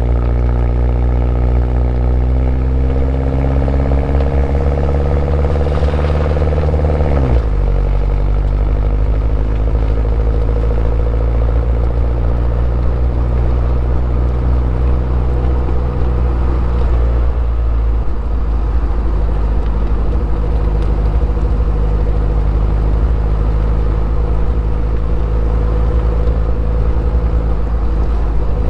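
Stock-exhaust 2011 Mini Cooper S R56's turbocharged 1.6-litre four-cylinder engine pulling up through the revs for about seven seconds. The revs then drop suddenly on an upshift, and the engine cruises at steady revs, with another drop in engine note about eighteen seconds in.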